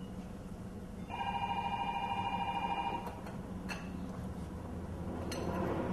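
An electronic ringing tone with a rapid flutter sounds for about two seconds, starting about a second in, over a steady low hum. Two faint clicks follow later.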